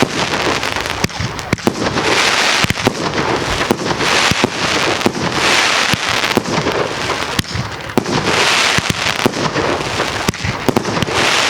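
A fireworks display going off: many sharp bangs in quick succession over a dense, hissing crackle that swells every few seconds.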